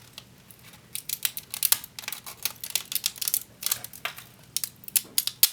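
Plastic 3D-print support material cracking and clicking as it is snapped and picked off a printed figure: irregular clusters of sharp little cracks, sparse for the first second, then busy, with one louder snap near the end.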